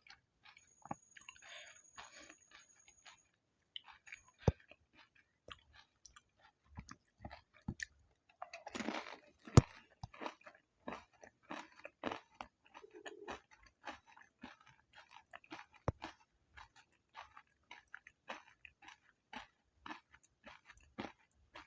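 Close-up mouth sounds of someone eating pani puri: crisp puri shells crunching and wet chewing in a run of small clicks and crackles, with a louder, crunchier bite about nine seconds in.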